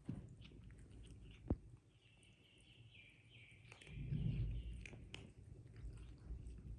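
Cats crunching dry kibble, small scattered clicks of chewing. There is a sharp knock about a second and a half in, a faint high thin tone for a couple of seconds in the middle, and a low rumble about four seconds in.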